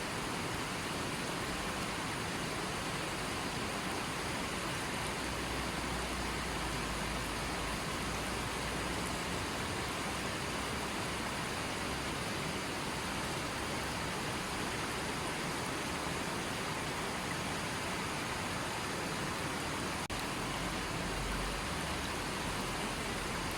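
A small stream running steadily, water rushing over rocks in a continuous even wash.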